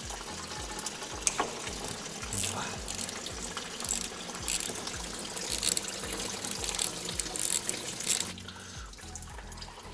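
Antifreeze running steadily out of a car's cooling system as it is drained, with a few sharp clicks of a wrench on the thermostat housing bolts.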